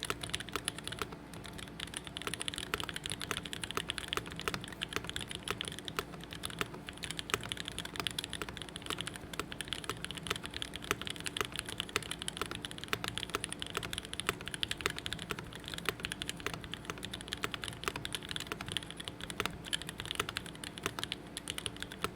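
Continuous fast typing on a custom mechanical keyboard with an aluminium plate, SP-Star Meteor White linear switches and GMK keycaps: a dense run of keystroke clacks, with now and then the deeper clack of a lubed stabilized key such as the space bar.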